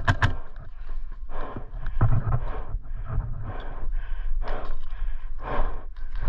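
Two sharp airsoft gun shots right at the start, then a player's heavy, rhythmic breathing with rustling movement close to the microphone.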